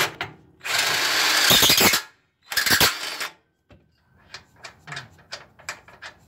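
Cordless impact wrench hammering on a control-arm mounting nut of a front suspension in two bursts, a longer one then a short one, as the nut is broken loose. Then a run of light metallic clicks and taps as the nut is worked off by hand.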